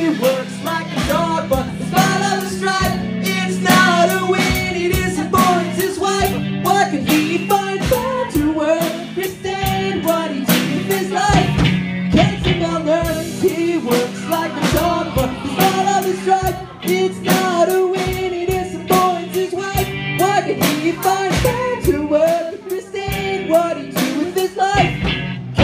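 A man singing into a microphone over a live electric keyboard and electric guitar, with a steady beat underneath.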